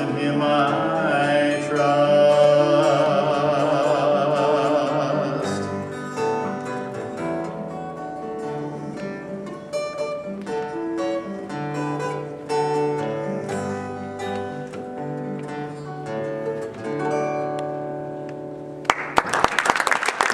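A man sings a long held note with vibrato over acoustic guitar, then the guitar plays on alone in single picked notes to the end of the song. Near the end the audience breaks into applause.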